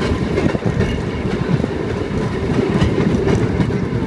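Train rolling along the rails: a steady low rumble with irregular wheel clicks over the track.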